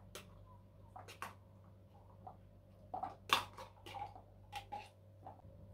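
Metal spoon clinking and scraping inside an opened tin of sweetcorn as the kernels are spooned out: a scatter of light ticks, loudest about three seconds in.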